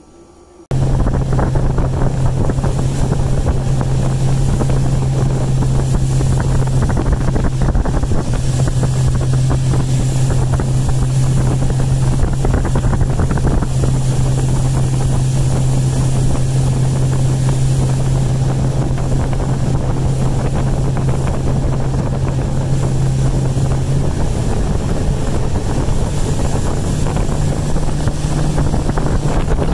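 Boat motor running steadily as the boat travels along the bayou, its engine note stepping slightly higher near the end. Wind buffets the microphone.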